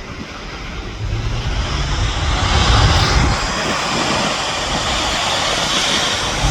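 Airliner engines growing louder about a second in and then holding a steady rushing noise, with wind buffeting the microphone in gusts.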